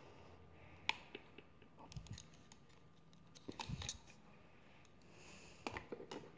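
Scattered light clicks and knocks of a handheld WS-858 Bluetooth karaoke microphone being handled, moved about and stood upright on a hard floor. The sharpest click comes about a second in, with clusters of clicks about halfway through and near the end.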